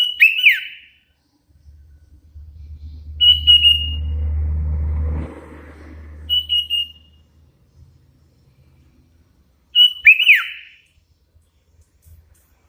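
Sooty-headed bulbul giving short whistled calls, four in all a few seconds apart, the first and last with a quick falling sweep. A low rumble rises and fades in the background between about two and six seconds in.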